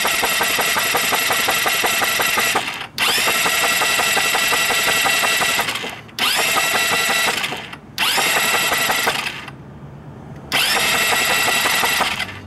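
A Chinese scooter's electric starter motor cranking the engine in repeated bursts with the spark plug removed and grounded against the engine for a spark test, so the engine spins without firing. There are five bursts of about one to three seconds, the first already under way; each new one opens with a whine rising in pitch, then runs steadily and cuts off.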